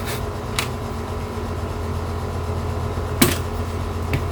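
Steady low hum in the room, with two sharp clicks from handling small parts of a disassembled DVD drive, about half a second in and again a little past three seconds in.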